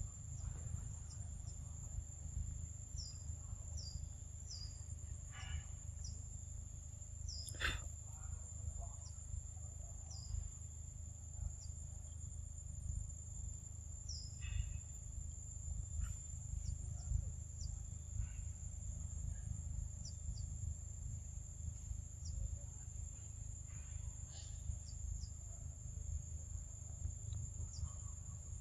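Forest ambience: a steady high-pitched insect drone, with short high chirps every second or two and a low rumble underneath.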